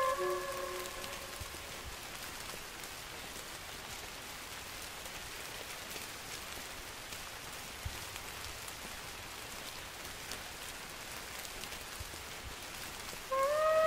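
Steady rain, an even hiss. A wolf's howl trails off just after the start, and near the end another wolf begins to howl, sliding up briefly in pitch and then holding one long note.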